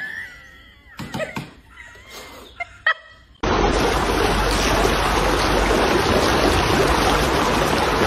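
Water spraying from a ground-level fountain jet: a steady rushing splash that starts abruptly about three and a half seconds in. Before it, only faint scattered sounds and a thin wavering tone.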